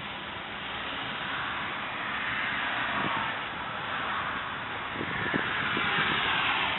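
Toyota 4.0-litre V6 engine running at idle, heard with the hood open as a steady hiss and whir.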